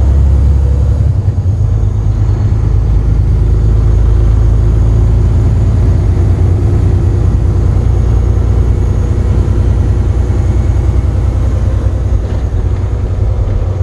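Semi truck's diesel engine and drivetrain running under way, heard from inside the cab as a steady, loud low rumble.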